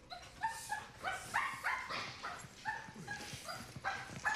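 Dog barking repeatedly in short, high-pitched yaps, about two a second.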